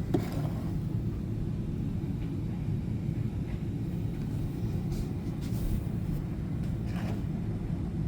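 Steady low rumble of background machine noise, with a few faint light taps.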